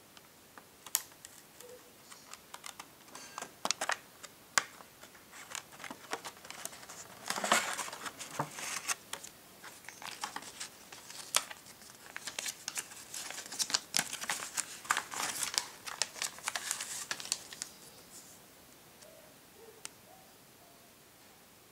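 Plastic blister packaging and card of a Hot Wheels blister pack crinkling, clicking and tearing as it is opened by hand, with two busier spells of crackling, a third of the way in and again past the middle. It goes quiet near the end.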